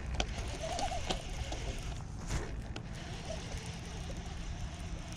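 Steady low wind rumble on the microphone over open water, with a few faint clicks and knocks from handling a baitcasting reel while retrieving a lure.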